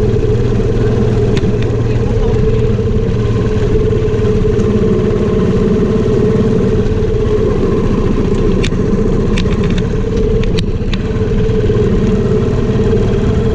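Motor scooter riding at a steady speed: a steady engine hum under loud wind rumble on the camera microphone.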